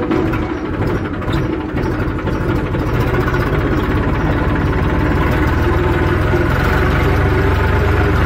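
Tractor diesel engine running steadily. It is a little uneven for the first couple of seconds, then holds a constant speed.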